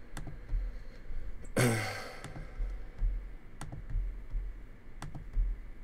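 A few sharp computer mouse clicks while editing a design, and about one and a half seconds in a single breathy sigh with a falling pitch, the loudest sound.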